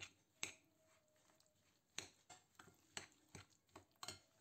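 Metal spoon clinking and scraping against a glass bowl while stirring a thick cottage-cheese mixture: about ten faint, irregular clicks.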